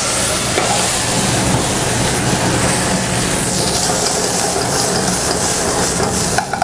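White wine poured into a hot pan of oil and garlic, sizzling and flaring up as it flambés: a loud, steady hiss.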